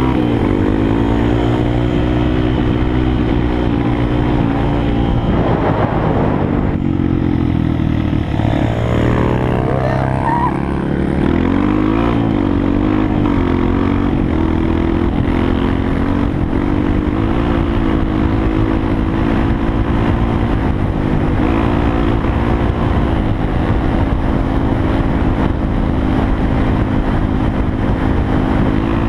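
Dirt bike engine heard close up from a camera mounted on the bike, running under throttle while riding. Its pitch rises and falls several times in the first dozen seconds, then holds fairly steady at cruising speed.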